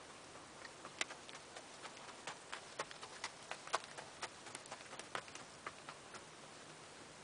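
Hooves of an Icelandic horse passing close by on frosty ground: a run of sharp, uneven clicks, several a second, loudest about a second in and again around the middle, dying away after about six seconds.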